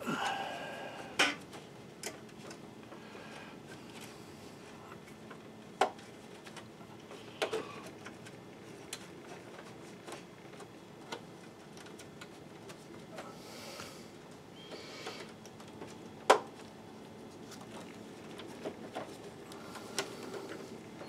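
Occasional sharp clicks and light clatter of plastic parts and wire connectors being handled and fitted during projector reassembly, over a faint steady hum. The loudest click comes about two-thirds of the way through.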